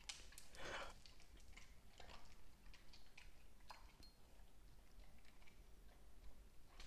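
Siberian husky crunching dry kibble from its bowls: faint, irregular crunches and clicks, a slightly louder one just under a second in.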